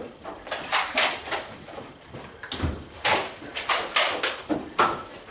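Nerf blasters and foam darts clacking and knocking: an irregular run of a dozen or so sharp knocks, with a heavier thump about two and a half seconds in.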